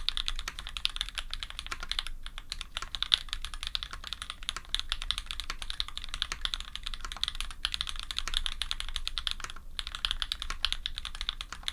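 Fast, continuous typing on a custom F1-8X mechanical keyboard with SP-Star white switches, GMK keycaps and an aluminium sandwich plate, keystrokes clacking in quick succession with a few brief pauses.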